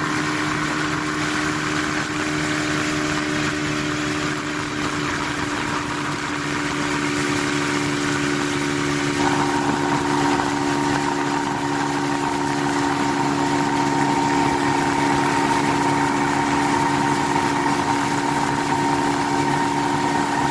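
Outboard motor running steadily at speed, with the hiss of water rushing past; a higher whine joins about halfway through.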